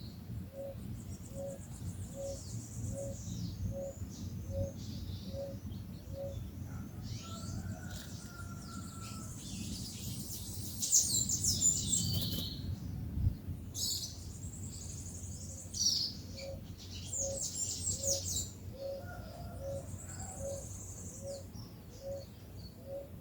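Birds at a feeder: one bird repeats a short, low cooing note in an even series, a little over one a second, which stops for a while mid-way and then starts again. Over it, songbirds give bursts of high chirps, loudest around the middle.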